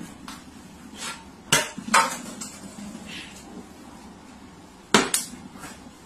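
Sharp knocks of something hard: three about half a second apart, then two quick ones a few seconds later.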